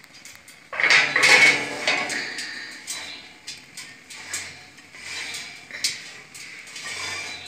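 Glass baking dish clattering and scraping on a metal oven rack as it is slid into the oven. The loudest clatter comes about a second in, followed by scattered clinks and scrapes.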